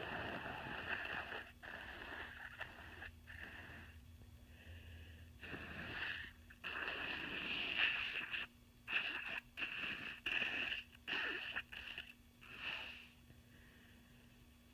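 A person blowing a heavily congested nose: a long wet blow at the start and another longer one midway, then a run of five or six short bursts.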